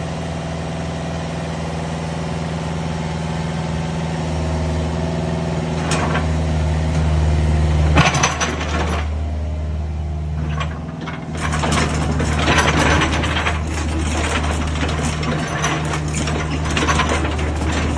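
Used Cat mini excavator's diesel engine running steadily at a constant pitch. About eight seconds in a busy mechanical clatter starts on top of it, eases for a couple of seconds and then carries on.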